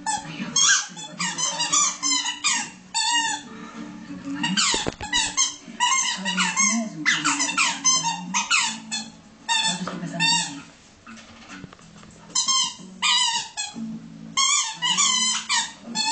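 Dog chewing a squeaky toy, making it squeak over and over in quick runs, with a short lull about two-thirds of the way through.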